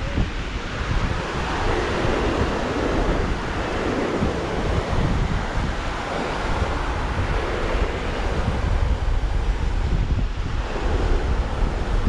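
Ocean surf breaking and washing up the beach, swelling louder and softer every few seconds, with wind buffeting the microphone.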